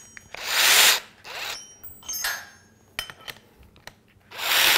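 Keyless chuck of a Metabo SB 18 LTX-3 BL Q I cordless drill twisted by hand to clamp an auger bit. It ratchets and rubs in several short bursts, with a few clicks in between, and the longest, loudest burst comes near the end.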